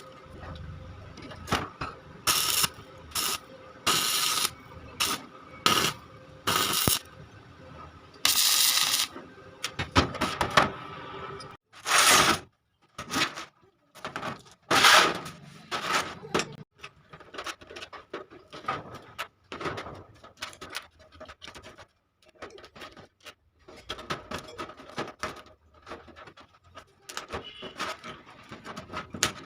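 Irregular metal scraping and clinking: short strokes and a few longer rasps of metal parts being handled and worked, with uneven pauses between them.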